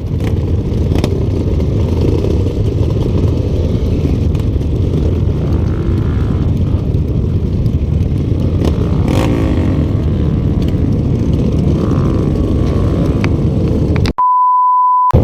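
Yamaha Vixion trail motorcycle's single-cylinder four-stroke engine running while ridden, a steady rumble, from an engine that the owner says is leaking compression and has lost power. About 14 s in, the engine sound cuts out for a steady one-second beep tone.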